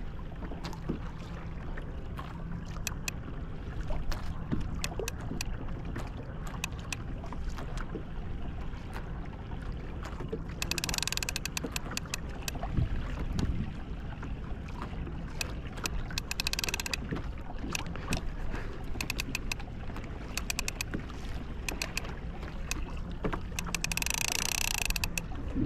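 Water lapping and slapping against a fishing kayak's hull, with wind on the microphone and many small knocks and clicks throughout. Three brief rushing hisses come about 11, 16 and 24 seconds in.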